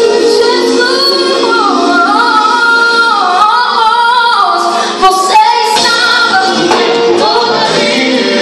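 Woman singing a gospel worship song live with band accompaniment, her voice sliding through melodic runs in the middle. A sharp hit sounds just past halfway.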